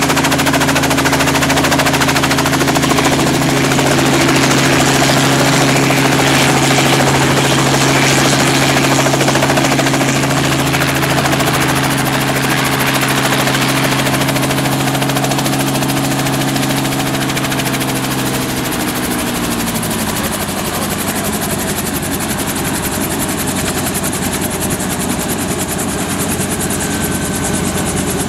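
Robinson R44 Raven II helicopter running close by, its Lycoming six-cylinder engine and main rotor making a steady, rapid beat. About two-thirds of the way through, the pitch drops as the rotor slows to ground idle, then holds steady at the lower speed.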